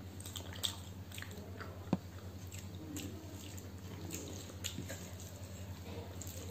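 Fingers mixing rice with egg curry and fish curry on a plate, giving soft wet squishing and a scatter of small clicks, one sharper about two seconds in. A steady low hum sits underneath.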